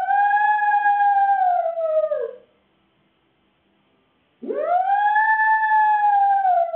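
Shih Tzu poodle cross dog howling. One long howl drops in pitch and ends about two seconds in; after a pause, a second howl swoops up and is held steady.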